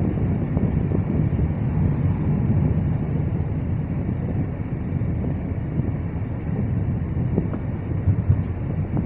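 Wind rushing on the microphone over the steady rumble of highway traffic, trucks and cars passing on the road below.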